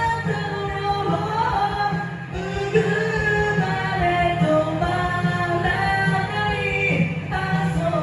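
A solo voice singing a J-pop song over a full band backing track with a steady beat.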